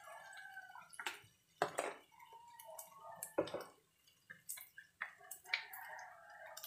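Faint wavering calls of chickens in the background, broken by several sharp taps.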